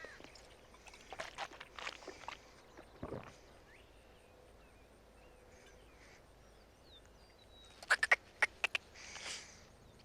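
A man drinking from a glass beer bottle, with throaty swallowing and mouth sounds about a second to three seconds in. A quick run of sharp smacking clicks comes near the end, then a short breathy burst.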